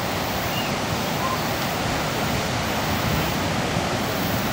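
Ocean surf breaking on a beach: a steady, even wash of waves.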